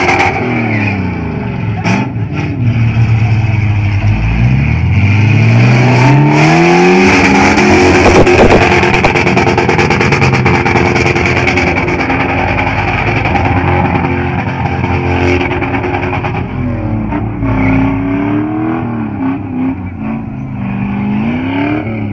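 Car engine revving hard during a drift run, its pitch climbing steeply and falling back several times as the throttle is worked.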